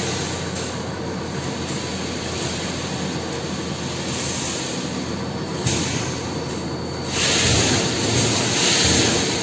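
Steady noise of machinery running in a metal-walled factory hall, a broad even roar. There is a single knock about halfway through, and the roar grows louder for the last two seconds.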